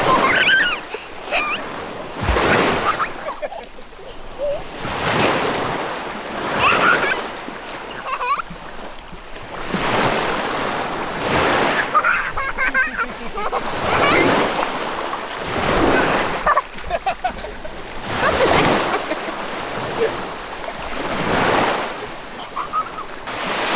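Waves washing in repeatedly, each one a rushing swell of noise lasting about a second, arriving every two to three seconds.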